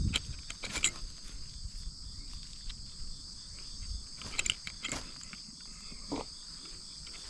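A steady chorus of insects, crickets among them, chirring in high, unbroken tones, with a few short clicks and rustles close by.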